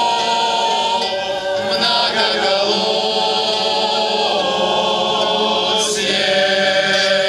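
A choir singing in several parts, holding long drawn-out notes of the refrain.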